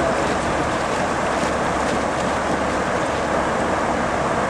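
Steady rush of river water around a kayak on the move, with wind on the microphone.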